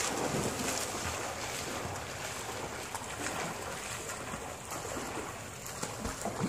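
A swimmer's arm strokes and kicks splashing through pool water, a steady run of choppy splashes.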